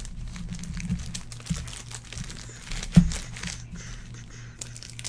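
Stack of trading cards being handled and flipped through, with light crinkling and small clicks, and one sharper knock about three seconds in.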